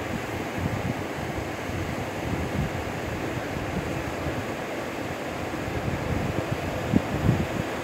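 Wind buffeting the microphone: a steady rushing noise with irregular low gusts, the strongest about seven seconds in.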